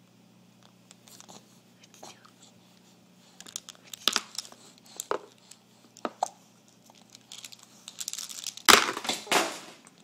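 A baby's short, sharp mouth and breath noises, about one a second, then a louder, longer rough burst near the end.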